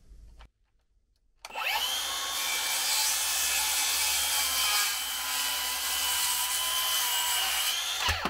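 Milwaukee M18 BLCS66 18 V brushless cordless circular saw starting up about a second and a half in and cross-cutting a wooden board in one pass: a steady high whine over the rasp of the blade in the wood for about six seconds, then stopping abruptly.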